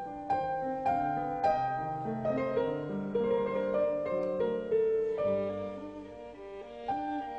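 Background music: piano notes played over sustained bowed strings.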